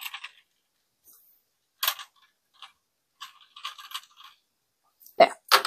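Scattered small clicks and light ticks as earrings are adjusted by hand on a rotating jewelry organizer, with a cluster of small ticks midway and two sharper clicks near the end.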